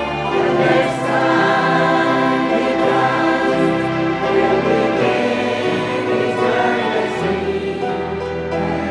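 Church choir singing in harmony, many voices holding sustained chords that shift from one to the next.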